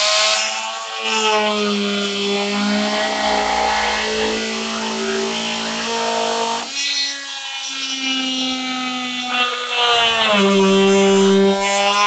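Oscillating multi-tool with a plunge blade cutting through the plastic flange of a Type 2 charging socket: a steady buzzing hum whose pitch shifts a few times as the blade bites into the plastic.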